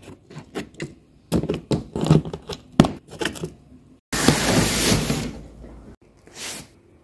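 Hands working a cardboard box's black plastic carry-handle insert: a run of small clicks and knocks. About four seconds in comes a rustling, scraping noise of about a second and a half, with a shorter one near the end.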